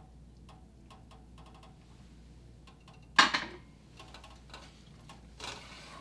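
A spatula stirring a thick butter-and-sugar sauce in an enamelled cast-iron pot, making faint scattered clicks and scrapes, with one sharp knock about three seconds in.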